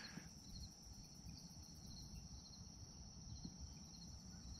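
Faint chorus of night insects, a steady high-pitched trill, over a low rumble.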